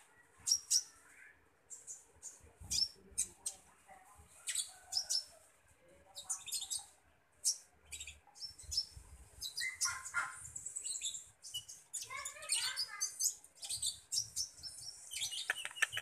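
Small caged konin ijoan (kolibri ninja) songbird calling: rapid, thin, high chirps, broken by short warbled phrases about ten and twelve seconds in and a quick run of notes near the end.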